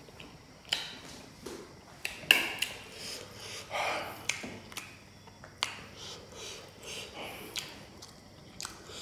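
Close-miked mouth sounds of someone eating very spicy noodles: scattered wet lip smacks and clicks, with a few short sniffs and breaths as the heat makes him sniffle.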